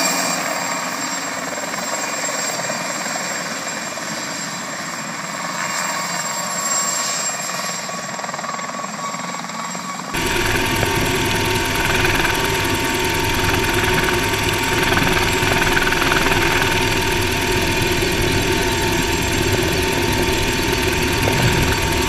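Mosquito ultralight helicopter's engine and rotor running steadily as it hovers low, heard from the ground. About ten seconds in, the sound switches to inside the open cockpit in flight, where the engine and rotor are louder and deeper.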